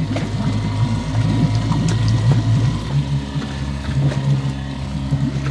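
A boat's inboard engine running steadily with a low drone, its note shifting about halfway through.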